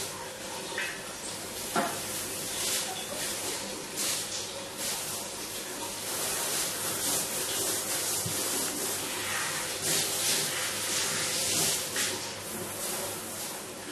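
Water spraying from a handheld shower head into a stainless-steel bathtub as it is rinsed and cleaned, a steady hiss of spray rising and falling, with a light knock about two seconds in.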